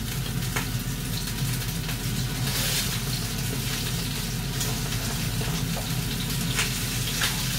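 Food sizzling steadily in a frying pan, with a few light clicks.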